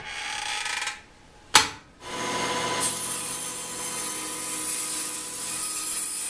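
Table saw blade ripping a thin cocobolo runner strip fed along the fence with push sticks, a light skim cut to shave the strip down to width by a few thousandths of an inch. It steadies into a continuous cutting sound about two seconds in, after a second of noise at the start and a sharp knock.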